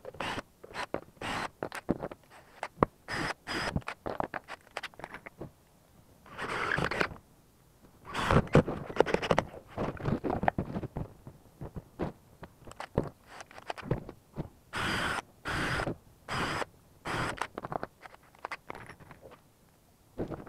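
2x4 wooden boards being shifted and fitted on a workbench: irregular scrapes and knocks of wood on wood and on the bench top, with a busier stretch about a third of the way in.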